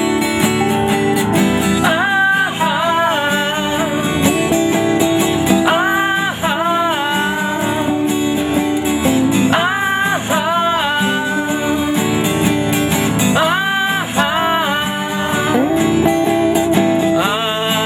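Acoustic guitar-led band music between sung verses. A high melodic lead line plays a short bending phrase that returns about every four seconds over the accompaniment.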